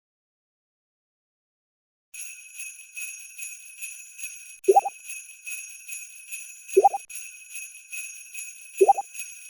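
Sleigh-style jingle bells shaken in a steady rhythm, starting about two seconds in after dead silence. Three short, loud rising chirps of a sound effect sound over the bells, about two seconds apart.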